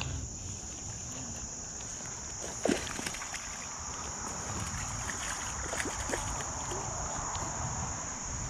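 A steady, high-pitched drone of summer insects, over low rustling of handling, with a single knock about two and a half seconds in.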